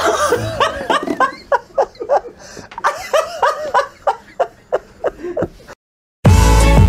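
A group of people laughing hard in rapid repeated ha-ha bursts and giggles for about five seconds. After a brief silence, loud upbeat electronic intro music with a drum beat starts near the end.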